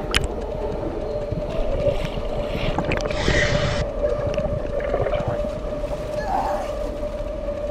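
Muffled underwater churning and splashing of swimmers thrashing in a pool, under a steady humming tone. A brief hiss comes about three seconds in.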